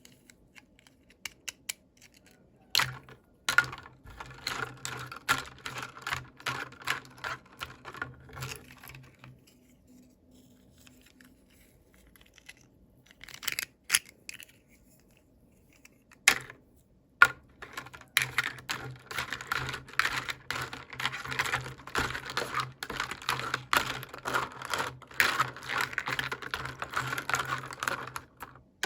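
Toy packaging being opened by hand: rapid crinkling and clicking of plastic and paper in two long stretches, with a quiet pause between them broken by a few sharp single clicks.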